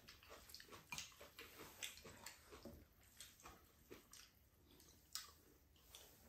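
Faint eating sounds of soy sauce cucumber noodles being eaten: wet chewing and small mouth smacks and clicks, several a second, thinning out about halfway through, with one sharper click a little after five seconds.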